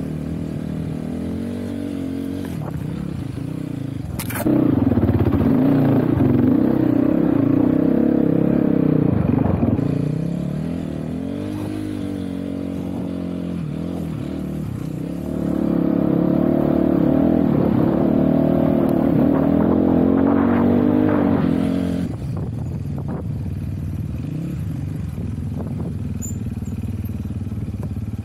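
GPX Moto FSE300R dirt bike engine running under changing throttle. It opens up sharply about four seconds in and again just past the middle, each pull lasting about six seconds, the second closing off abruptly, with lower, steadier running in between.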